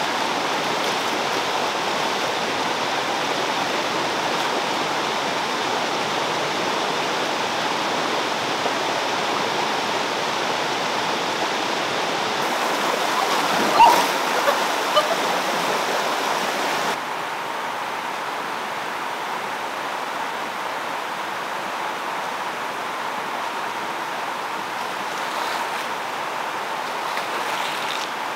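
Stream water running with a steady rush, with a few short sharp sounds about halfway through; a little later the rush drops slightly quieter.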